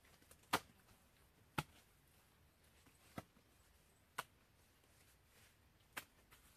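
Hands slapping and packing wet mud against the base of a log wall: five short, sharp slaps one to two seconds apart, the first two the strongest.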